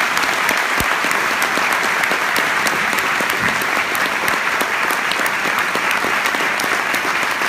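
Audience applauding steadily, a dense mass of hand claps filling the hall.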